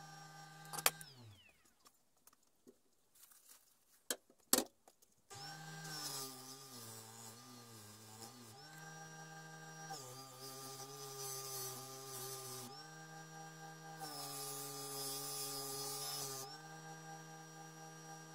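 Electric motor driving a felt polishing pad: it is switched off about a second in and winds down, a few clicks follow, and it starts again about five seconds in and runs on with a steady hum. Its pitch dips for a couple of seconds and later a hiss rises over it for a couple of seconds, as a cleaver edge is polished against the pad.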